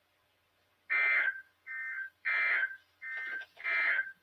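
Emergency Alert System end-of-message data bursts: short, harsh two-tone digital bursts, about five in quick succession starting about a second in, alternately louder and softer. They signal the end of the alert message.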